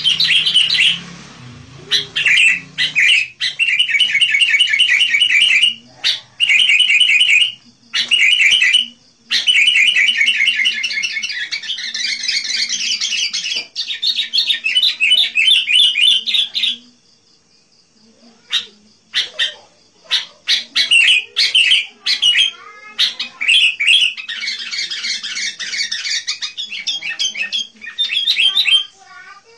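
Sooty-headed bulbul singing energetically: rapid chattering bursts of notes repeated in phrases, with short breaks and one pause of about a second and a half a little past halfway.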